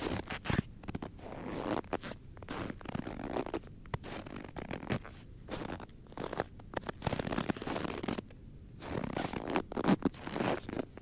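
Footsteps in cold, dry snow at about −15 °C: each step crunches and squeaks as it packs the snow, in an uneven walking rhythm, close to the microphone.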